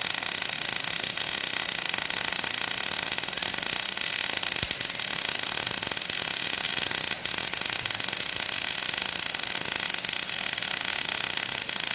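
MIG welding arc in short-circuit transfer, a steady dense crackle with a brief break about seven seconds in. The crackle is a bad sound, which the welder puts down to holding the gun too close to the work.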